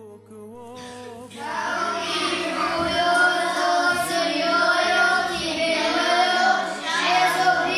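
A group of children singing together in unison. It comes in loudly about a second in, after a faint wavering held note.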